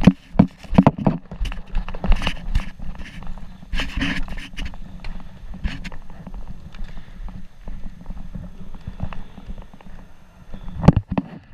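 Irregular footsteps and knocks, like a player moving with gear, with louder clusters of thuds near the start and near the end.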